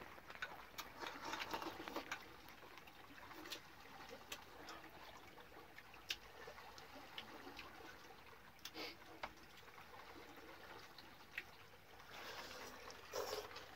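Faint, scattered clicks of chopsticks against porcelain bowls and a metal pot, over a soft, steady trickle of water. It gets a little louder near the end.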